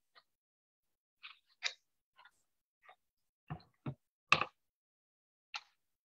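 Picture book being handled: a series of short rustles and taps of paper as a page is turned, with three heavier knocks a little past halfway, the third the loudest, as the book is lifted and set against the camera.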